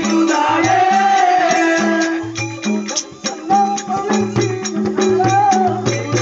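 Telugu folk-theatre music played for a stage performance. A wavering lead melody runs over a regular low drum beat of about two strokes a second, with jingling rattles or cymbals.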